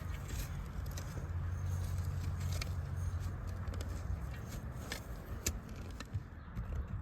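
Scattered clicks and scrapes of hand digging in dirt and glass, over a low steady rumble that eases about four seconds in.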